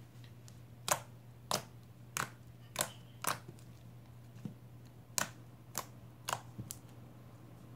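Homemade glue slime being poked and squeezed by hand, giving about ten sharp clicking pops roughly every half second, with a short pause in the middle.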